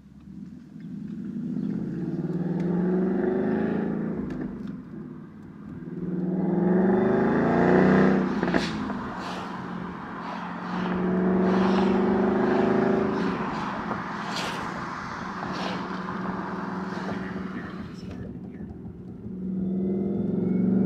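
Supercharged V8 of a 2017 Ford Mustang GT heard from inside the cabin, accelerating in several pulls with the engine pitch climbing each time, loudest about eight seconds in, and steadier running between the pulls.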